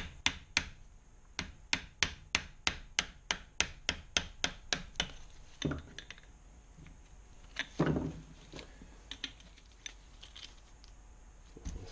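A metal spanner turning out a freed cylinder barrel retaining bolt on a Kawasaki KLR 650 engine: a run of sharp metallic clicks, about four a second, for the first five seconds. Then a few scattered knocks and a heavier thud near eight seconds as the engine is handled.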